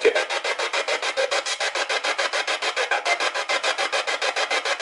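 Spirit box sweeping through radio stations: choppy static pulsing about ten times a second, with fragments of sound between the pulses. The uploader takes a fragment here for a spirit's voice saying "Ik sta steeds hier" ("I'm always standing over here").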